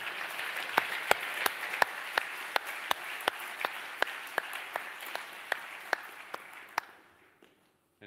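Audience applauding: a dense clapping with a few louder single claps standing out, thinning and dying away about seven seconds in.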